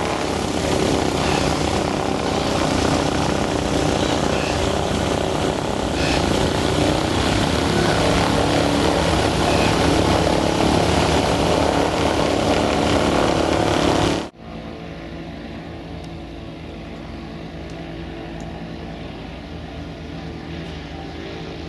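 Cessna 172 Skyhawk's four-cylinder piston engine and propeller, loud and close with a heavy rushing noise, cut off abruptly about two-thirds of the way through. A quieter, steady propeller-engine drone follows.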